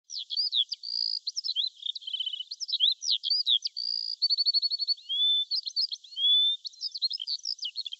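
A songbird singing: a quick, unbroken string of varied high chirps, whistled notes and short rapid trills.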